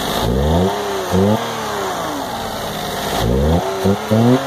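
Daihatsu Mira's three-cylinder engine revved by hand at the throttle body: quick blips of revs that rise sharply and drop back to idle. There are two groups, one just after the start and one about three seconds in, each with a smaller blip or two after the main one.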